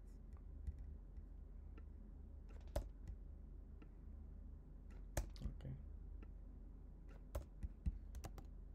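Computer keyboard typing: scattered, irregular keystrokes and clicks, a few sharper ones standing out, over a steady low hum.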